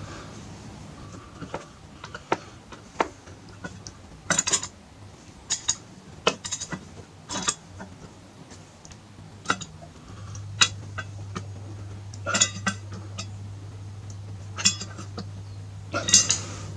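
Metal hand tools clinking and tapping irregularly against the motorcycle's rear brake caliper parts during a brake pad change. A faint low hum comes in about ten seconds in.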